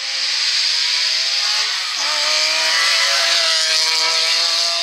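BMW Z3 M rally car's straight-six engine at full throttle as the car approaches and passes close by, pitch rising under acceleration. The engine note dips briefly about two seconds in, then climbs again.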